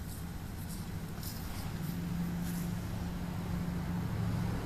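A steady low mechanical hum with two held tones, like an engine or motor running, slowly growing a little louder, with a few faint light ticks in the first few seconds.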